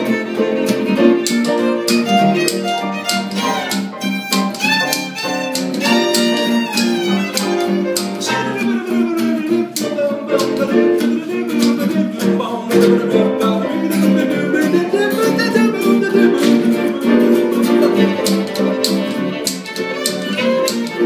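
Live acoustic music: a violin playing a wavering melody over a strummed acoustic guitar.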